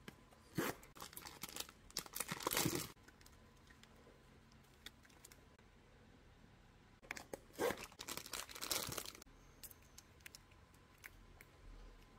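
Packaging torn open and crinkled by hand in two spells, about half a second in and again about seven seconds in: a small cardboard blind box being opened, then the figure's plastic wrapping. Light clicks and handling noises fall between.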